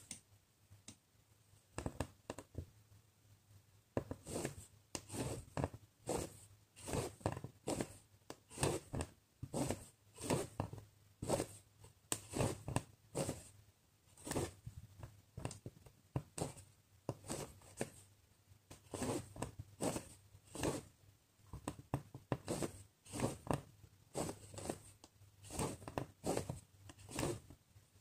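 Embroidery floss being drawn through cross-stitch Aida cloth as stitches are worked: a long series of short, noisy pulls about one or two a second, sparse at first and steady from about four seconds in.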